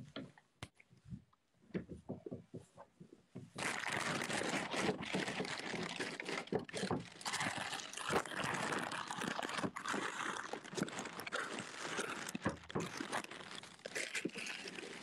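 Handling noise from a phone being moved and rubbed against clothing: a few scattered knocks at first, then dense rustling and crackling from about three and a half seconds in, easing off near the end.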